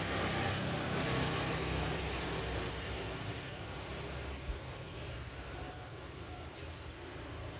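Outdoor ambience: a low rumbling noise, like distant traffic, that fades after the first few seconds, with a few short, high bird chirps about four to five seconds in.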